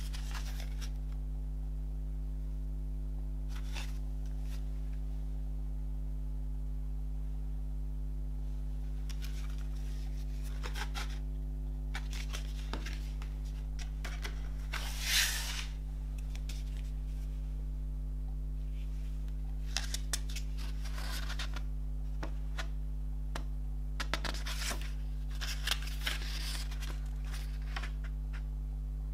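Cardboard CD digipak and paper lyric booklet being handled: scattered rustles and scrapes, the loudest a swish about halfway through as the booklet slides out of its cardboard pocket, then pages being turned near the end. A steady low electrical hum runs underneath.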